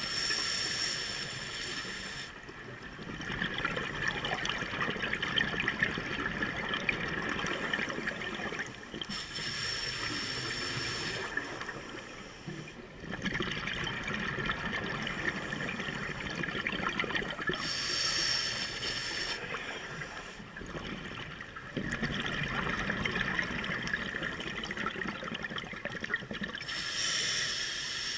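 Scuba diver breathing through a regulator underwater: a short hissing breath in about every nine seconds, four times, each followed by several seconds of exhaled bubbles.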